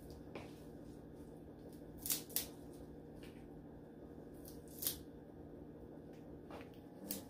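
Watercress stems being snapped and pinched off by hand: a few short, crisp snaps, two close together about two seconds in and another about five seconds in, with fainter ones between, over a low steady hum.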